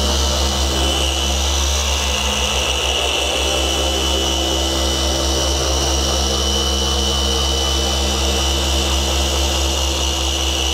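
Rupes machine polisher with a foam pad running steadily at speed 4 on car paint, working in a one-step polish. It makes a steady high whine over a low motor hum.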